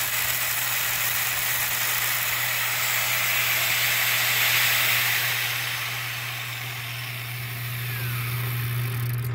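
Angle grinder with a worn-down disc grinding a weld bevel into a steel sprocket and taking off its black scale as the sprocket turns in a lathe chuck. The grinding hiss runs steadily over a low hum from the lathe and drops away just at the end.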